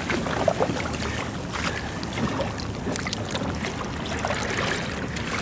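Water sloshing and lapping around a plastic kayak and the back of a southern right whale surfacing right beside it, with wind on the microphone and a few small knocks.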